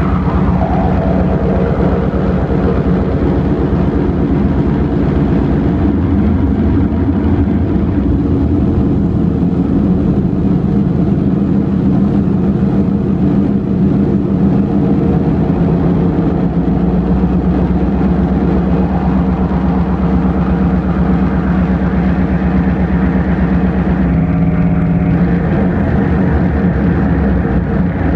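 Loud electronic drone music: a dense, steady stack of low sustained tones over a deep rumble. A falling tone sounds just after the start, the bass swells about two-thirds of the way through, and the texture shifts again near the end.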